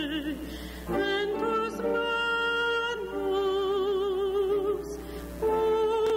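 A cantor singing the responsorial psalm solo: long held notes with wide vibrato, with new phrases beginning about a second in and again a little after five seconds.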